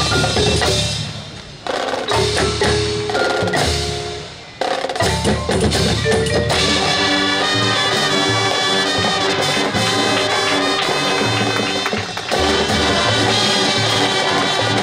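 High school marching band playing its field show, with front-ensemble mallet percussion (marimba, glockenspiel) and drums prominent. The music twice fades briefly in the first few seconds, then the full band plays on from about five seconds in.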